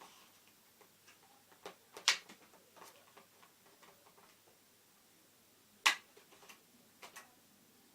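Sharp clicks and taps of hands handling RAM modules and plastic parts at an iMac's memory slots, with two loud clicks about two seconds in and just before six seconds, and a quick pair of lighter clicks near the end.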